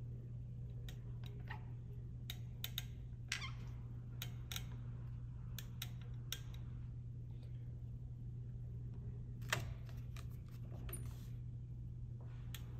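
Sharp, irregular clicks from a caulking gun as its trigger is squeezed to lay a bead of urethane windshield adhesive, the loudest about nine and a half seconds in, over a steady low hum.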